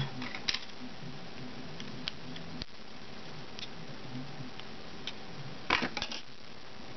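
Small plastic clicks and taps of a micro SIM card being slid into the SIM slot of a Samsung Galaxy S3 with its battery out, a few scattered clicks and then a short cluster of clicks near the end.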